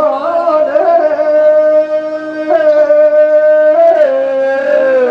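Rajasthani Teja gayan folk music: a long, loud high note held steady with rich overtones, wavering in quick ornaments at the start, shifting pitch a few times, and sliding down near the end.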